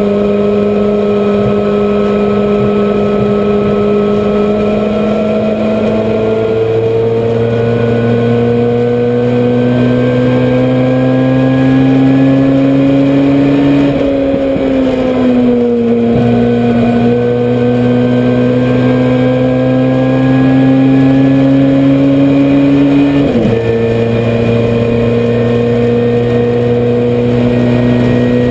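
Honda CRX race car's engine heard from inside the cockpit, pulling hard at high revs with its pitch climbing slowly. The pitch eases and recovers about halfway through, then drops sharply about 23 seconds in at an upshift and carries on steady.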